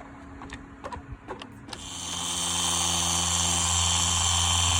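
A few light clicks and handling taps, then a little under two seconds in an Adam's Polishes cordless polisher starts up, spins up and runs steadily with a low hum, compounding a headlight lens with a heavy cutting pad.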